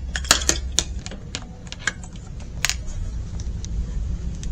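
A run of irregular sharp clicks and taps, densest in the first second and thinning out after, over a low steady hum.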